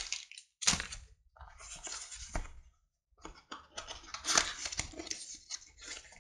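Small cardboard box being handled and opened by hand: a knock early on, then scattered scrapes and rustles, turning to denser crinkling of cardboard flaps and plastic packaging in the second half.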